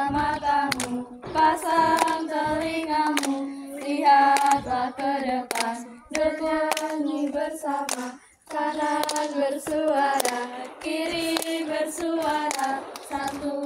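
A group of girls singing a Pramuka scout cheer song (yel-yel) together, keeping time with hand claps. The singing stops briefly a little past halfway, then carries on.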